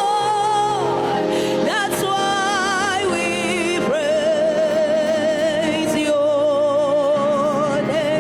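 Gospel worship singing: a solo voice holding long notes with vibrato and sliding up into new notes, over sustained instrumental backing.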